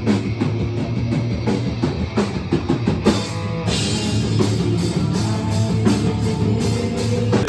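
Rock music with a drum kit and guitar, cutting off suddenly at the end.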